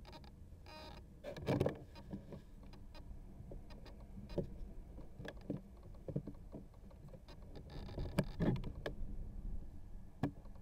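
Scattered knocks and rubs as the model plane carrying the camera is handled and carried, over a faint low wind rumble on the microphone.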